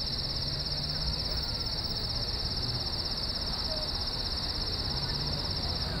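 Crickets chirping in a steady, high-pitched chorus, a fast, even trill with no break.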